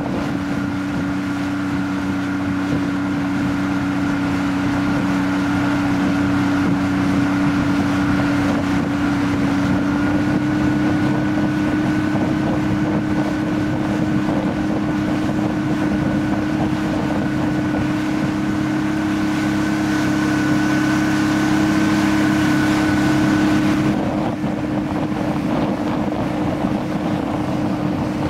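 Fishing boat's motor running steadily under way, a steady hum with a higher whine above it, with wind buffeting the microphone. About 24 seconds in, the engine tone drops away and mostly wind noise is left.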